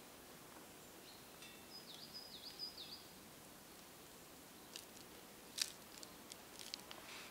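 A bird calls faintly in a quiet forest, a short phrase of a few high, dipping notes. Then comes a scatter of small sharp clicks and a brief soft rustle as hands push pieces of vegetable onto wooden skewers.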